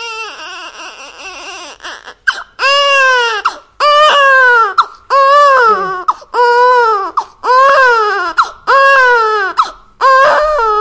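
Loud, high-pitched, exaggerated crying: after a fading, wavering sob in the first two seconds, about seven wails follow, one roughly every second and a bit, each rising and then falling in pitch.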